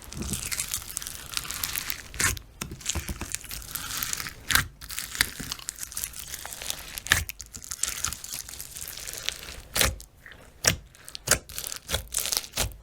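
Slime being squished and pressed by hand: a continuous crinkly crackle full of sharp pops and snaps, with the pops coming thicker in the last few seconds.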